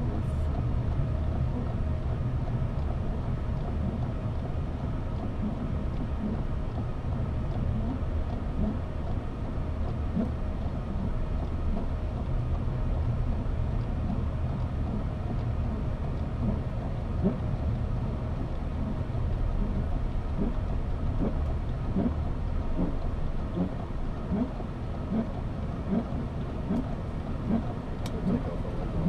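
Boeing 737-800 flight deck in flight: a steady low rumble of rushing air and engine noise.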